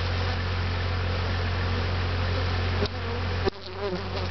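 Honeybees from an opened top-bar hive buzzing steadily around the microphone, with two short knocks about three seconds in.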